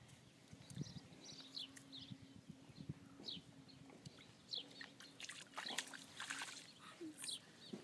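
Faint chirping of small birds: short, high, falling calls every second or so, over a faint low hum that comes and goes.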